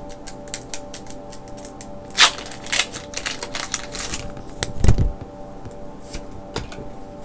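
Foil Pokémon booster pack wrapper crinkling and crackling as the pack is opened and the cards are pulled out, in quick clicks. There is a heavy dull thump about five seconds in.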